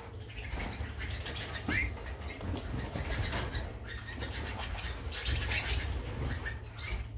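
Harzer Roller canaries in their cages fluttering and hopping about, with rustling wingbeats and a few short rising chirps, over a low steady hum.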